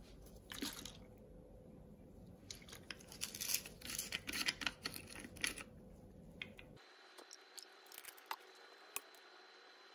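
Handling noise from gloved hands setting out a plastic bottle and a small glass dish on a fabric mat: rustling and light clicks, busiest in the middle, then only a few scattered ticks.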